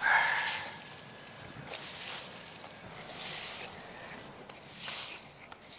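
Long-handled broom sweeping dry leaves on bare dirt ground, four separate swishing strokes about one and a half seconds apart.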